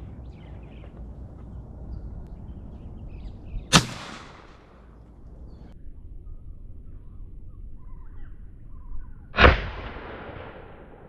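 Two shotgun shots about five and a half seconds apart, each sharp and loud with a short echoing tail.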